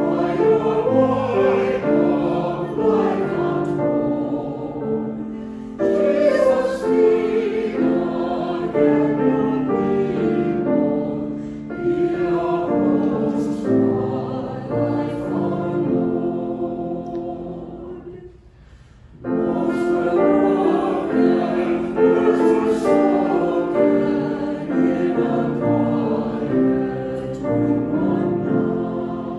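Mixed church choir of men's and women's voices singing an anthem with piano accompaniment, in sustained phrases. The choir breaks off briefly about two-thirds of the way through, then comes back in.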